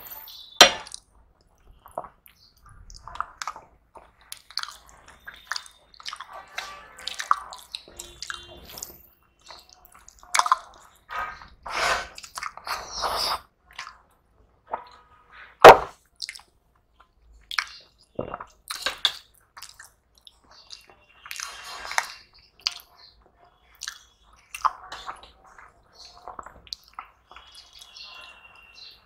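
Two people eating rice and curries with their hands from steel plates: chewing, and soft squishing of rice being mixed by hand. A few sharp clinks of a spoon on steel dishes come through, the loudest about halfway through.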